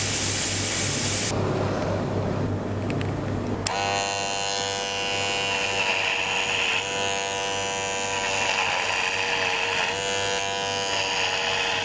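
Electric hair clipper switched on about four seconds in and running with a steady buzz; its pitch dips briefly a couple of times. Before it starts, there is about a second of hiss and a low hum.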